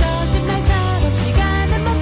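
Pop-rock song with a lead singer over a band, a steady drum beat of about three hits a second under sustained bass notes.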